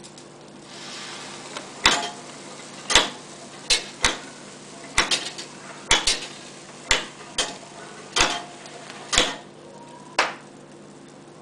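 Peg wheel of a model ancient automaton theatre turning, its mechanism giving about a dozen sharp wooden knocks, roughly one a second with some in quick pairs. These are the theatre's mechanical battle sounds for its two fighting warrior figures. A soft hiss comes just before the first knock, and the knocks stop about ten seconds in.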